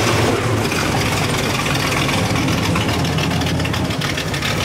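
Car engine idling steadily with a low rumble.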